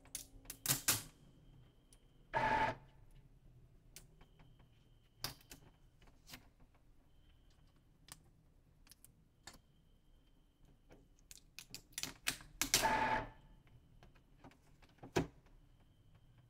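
Epson L3250 ink-tank printer running its initial ink charge: irregular mechanical clicks and ticks, with two short whirring bursts about 2.5 seconds in and again near 13 seconds.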